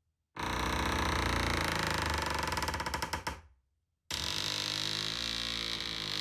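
Old wooden door creaking on its hinges as it swings, a rapid grating creak: one long creak of about three seconds that fades out, then after a short gap a second creak starting about four seconds in.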